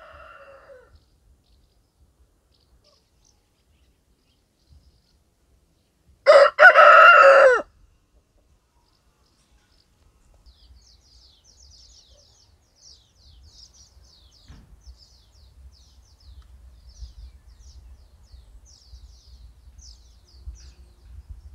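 Domestic rooster crowing once, a loud cock-a-doodle-doo of just over a second about six seconds in. Later, small birds chirp faintly in quick, high notes.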